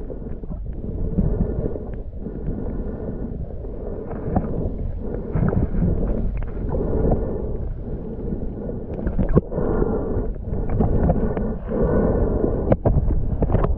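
Muffled water noise heard from below the surface: sloshing and gurgling water with scattered sharp clicks and knocks.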